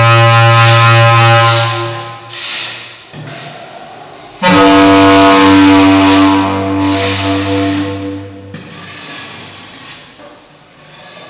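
Slow contemporary music of long, held low notes. A loud sustained chord fades out about two seconds in; a new one enters suddenly at about four and a half seconds and dies away by about eight and a half seconds, leaving a much quieter stretch.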